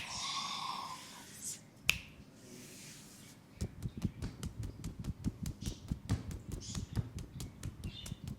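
Massage on an oiled leg: two sharp clicks in the first two seconds, then from about three and a half seconds in a fast run of short slaps of hands on skin, several a second.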